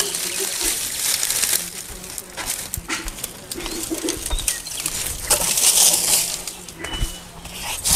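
Dry grass stalks rustling and crackling as an armful of stove fuel is pulled from a bundle, carried and set down, with a dove cooing in the background.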